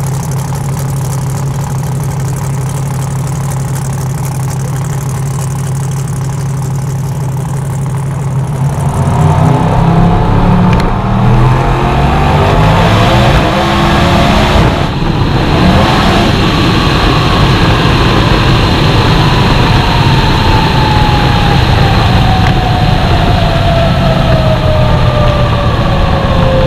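Twin-turbo 454ci billet Noonan V8 drag engine on methanol, in a 2006 HSV GTO, running steadily at the start line, then about nine seconds in turning much louder and rougher as the car launches on a test hit and pulls down the track. In the last ten seconds a whine falls steadily in pitch as the car slows.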